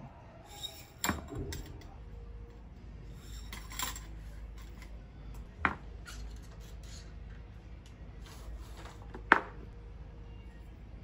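Metal tent pole sections clinking against each other as they are slid along the shock cord and fitted together: four sharp clicks, the loudest near the end.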